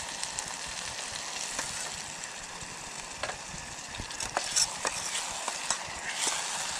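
Onions, tomatoes and green chillies sizzling steadily in hot oil in a pan over a portable butane gas stove, with scattered light clicks of stirring.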